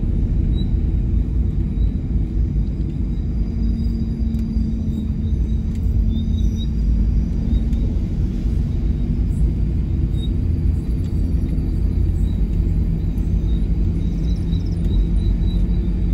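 Steady low road and engine rumble heard from inside a moving car, with a faint engine hum that shifts lower about two-thirds of the way through. An oncoming vehicle passes about halfway through with a light rush.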